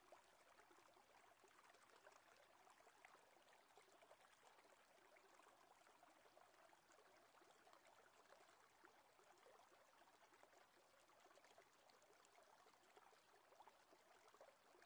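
Near silence with faint, steady flowing river water.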